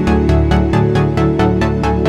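Electronic music with a fast, steady beat over held synth chords.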